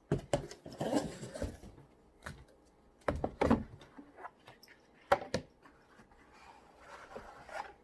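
Packaging and a travel humidor case being handled while it is unboxed: scattered sharp clicks and knocks with short bursts of rustling, in a few clusters.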